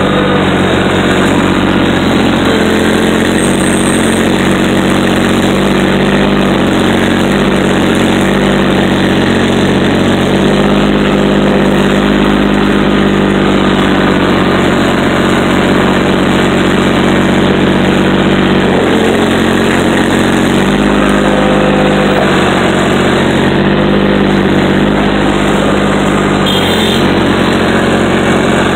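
Heavy diesel engines running loudly and steadily: a truck idling by its vertical exhaust stack while an excavator loads debris alongside. The engine note shifts a little now and then.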